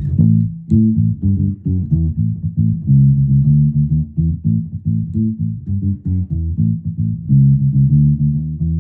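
Five-string electric bass played as a line of short plucked notes that stop quickly. This is the muted, thumpy old-school tone that comes from foam stuffed under the strings in front of the bridge to cut the sustain.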